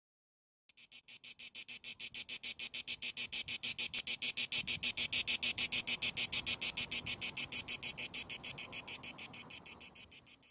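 Cicada song: a high-pitched buzz pulsing evenly at about seven pulses a second. It starts a moment in, swells to its loudest about halfway, then fades and stops abruptly near the end.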